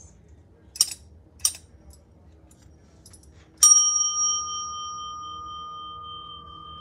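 Two light clicks, then a metal desk bell struck once by its plunger, ringing on with one clear tone and higher overtones that slowly fade.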